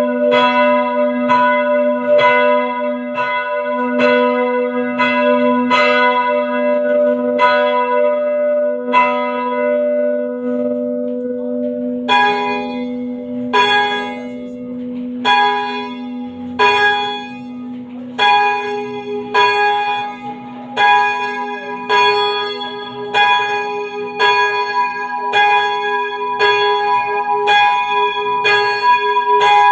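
Church bells being rung down: a higher bell strikes about twice a second and falls silent about ten seconds in, then a lower-pitched bell strikes about once a second.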